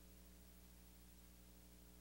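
Near silence: a faint steady hum with a low hiss.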